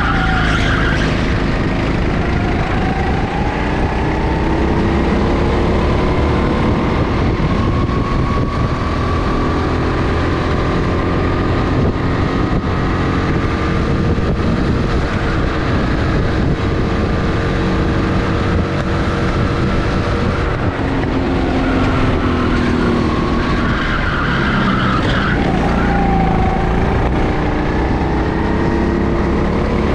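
Go-kart engine heard from the driver's seat, running hard, its note rising and falling as the kart speeds up on the straights and slows for the corners.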